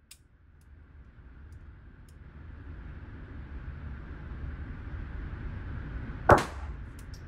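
A single gunshot about six seconds in, sharp and echoing briefly off the indoor range, over a steady low rumble.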